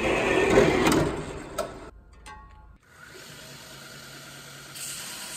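An old horizontal metal-cutting bandsaw runs as its blade cuts through a piece of steel flat bar. About three seconds in, after a sudden change, a 2x72 belt grinder is running, and a small square of steel is pressed against the belt; the grinding hiss gets louder near the end.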